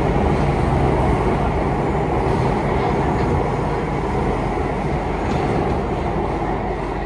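Singapore MRT train running between stations, heard from inside the carriage: a steady rumble and hum of wheels on rail and traction motors, easing slightly toward the end.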